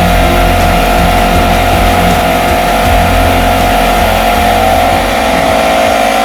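Air compressor running steadily under load while pumping up a bottle, with a constant hum and a held mid-pitched tone.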